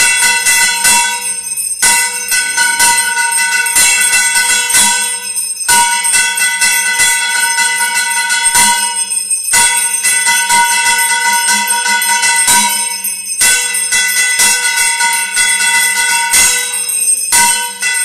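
Temple arati bells ringing rapidly and without a break, a dense metallic jangle over steady ringing tones, with a brief lull about every four seconds.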